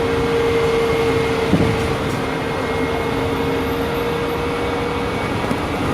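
Scania K310 articulated city bus under way: the drivetrain runs with a steady drone and a steady whine, and there is a short thump about a second and a half in.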